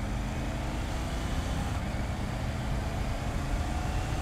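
Triumph Tiger 900 GT Pro's three-cylinder engine accelerating up through the gears. Its pitch rises, drops back at a quick upshift on the shift assist about two seconds in, then rises again.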